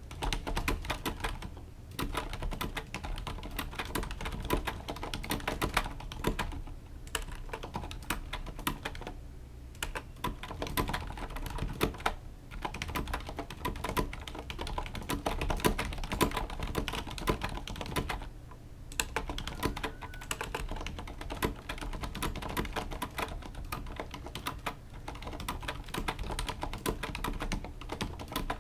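Typing on a Corsair Strafe RGB mechanical keyboard with Cherry MX Silent switches: fast runs of keystrokes broken by a few brief pauses.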